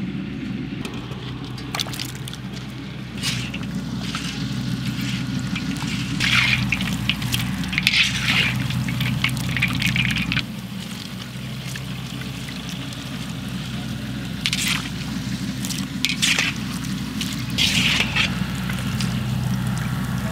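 Gulab jamun dough balls deep-frying in a large wok of hot oil, the oil bubbling and fizzing over a steady low hum. There are several short louder swishes as a slotted steel skimmer moves through the oil.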